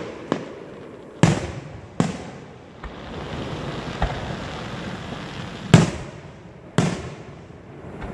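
Aerial firework shells bursting: a series of sharp bangs, each dying away, the loudest about three-quarters through. Between bangs in the middle there is a fizzing crackle.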